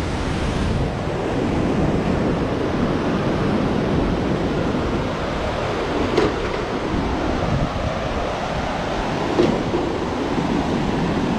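Fast whitewater river rushing over rocks below a bridge, a steady, loud rush of water.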